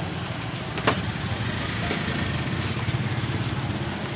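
A small motor running steadily with a low hum, and one sharp click about a second in.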